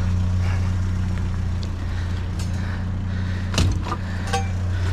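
Vehicle engine idling with a steady low hum, with a sharp knock about three and a half seconds in and a few light clicks just after.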